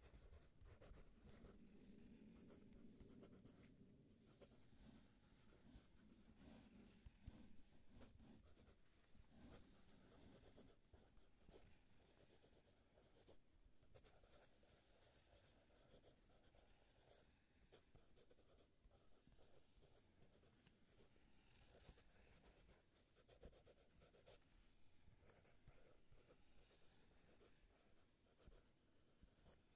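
Faint, rapid scratching and tapping of a stylus drawing and hatching on a tablet screen.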